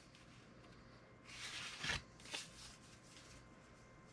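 Paper rustling as a folded pamphlet and a soft paper sheet are handled and lifted from a cardboard box, with a sharp crackle of paper about two seconds in and a shorter one just after.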